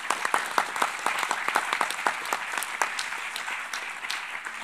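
Audience applauding: a round of many hands clapping at once, slowly thinning out near the end.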